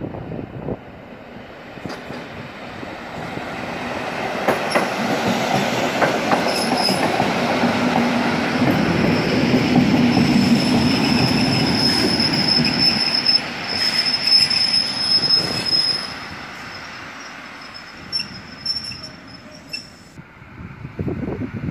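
EN57 electric multiple unit pulling into the station. Its running noise grows louder as it comes past and slows, with a steady high squeal for several seconds through the middle. It then dies down to a few scattered clicks as the train comes to a stop.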